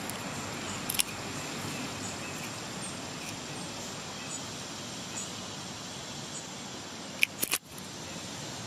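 Steady outdoor background hiss with faint, short, high bird chirps scattered throughout, and a few sharp clicks about a second in and a quick cluster of them near the end.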